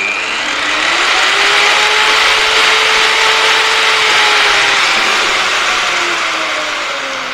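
Electric variable-speed car polisher running, a motor whine over an airy hiss. The pitch rises in the first second or so as the speed dial is turned up, holds steady, then falls over the last couple of seconds as the speed is turned back down to the lowest setting.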